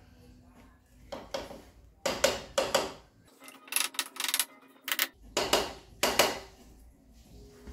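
Honda XR650R cylinder head being tapped down over its dowel pins onto the new head gasket: several short clusters of sharp metallic taps and knocks, with a quicker run of light, high clicks about halfway through.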